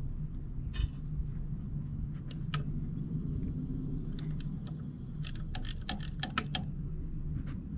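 Metal parts clinking and tapping as the greasy clutch plates and tools of a cable control unit are handled, with a quick run of sharp clicks about five to six and a half seconds in, over a steady low hum.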